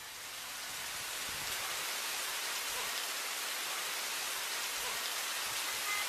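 Heavy tropical rain pouring down onto wet ground and puddles: a steady hiss that fades in over the first second, then holds even.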